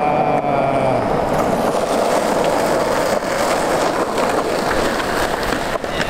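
Skateboard wheels rolling over concrete, a steady rumble.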